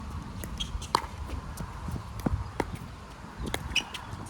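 Pickleball rally: paddles striking the hollow plastic ball, several sharp pops about half a second to a second apart, the loudest about a second in, over a low rumble of wind on the microphone.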